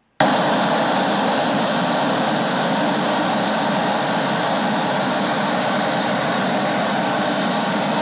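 Pink noise test track played loud through Hertz motorcycle speakers driven by a Hertz SP4.900 amplifier: a steady hiss like static that starts abruptly just after the beginning and holds an even level.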